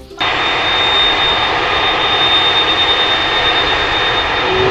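Jet engines of a three-engine cargo airliner running as it taxis: a steady roar with a thin high whine over it. A lower, slightly rising tone joins near the end.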